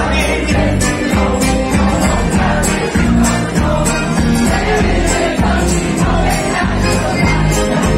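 Live band music played loudly, a man singing into a microphone over a steady beat with evenly spaced jingling percussion hits.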